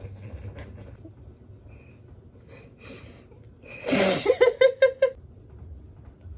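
A young woman's high-pitched giggle, a quick run of about six short pulses, about four seconds in.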